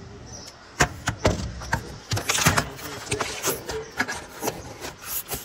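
Handling noise: a phone knocking and rubbing against the insides of an air conditioner's outdoor unit as it is moved around and pulled out, a run of irregular clicks and scrapes close to the microphone.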